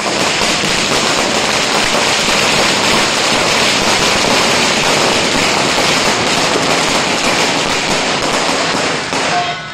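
Many firecrackers bursting on the street in a dense, continuous crackle of rapid bangs, which dies away about nine seconds in.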